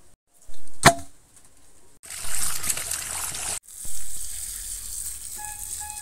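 Water splashing and sloshing in a steel bowl as hands wash peeled yellow cucumber pieces, with a sharp ringing knock about a second in. Near the end a few short, evenly repeated tones come in over it.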